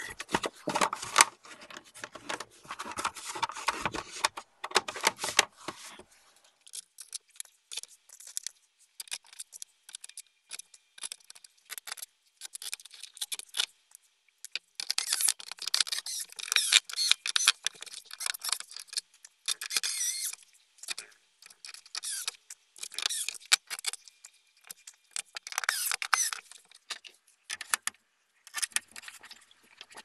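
Plastic parts of a PlayStation 5 console being handled and fitted by hand: irregular clicks, taps and scrapes of hard plastic, in busier clusters with short pauses between.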